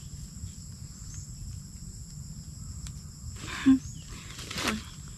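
Insects droning steadily in a high, even buzz. Two short vocal sounds from a person break in about three and a half and four and a half seconds in, the first the loudest.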